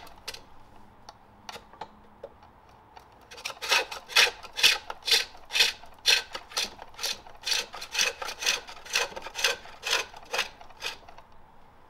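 A hand-forged hook tool shaving the inside of a jacaranda bowl on a pole lathe: rhythmic scraping cuts, about two a second in time with the lathe's back-and-forth strokes, starting about three seconds in and stopping just before the end.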